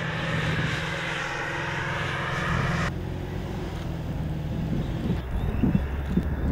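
AS90 155 mm self-propelled gun on the move: its V8 diesel engine runs steadily as the tracked hull drives along. The sound changes abruptly about three seconds in, losing much of its higher hiss and clatter.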